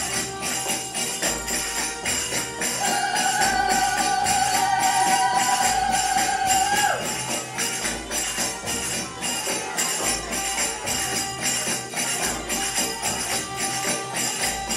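Belly dance music with a busy, steady jingling tambourine rhythm. From about three to seven seconds in, a high warbling tone is held over it and ends in a quick falling slide.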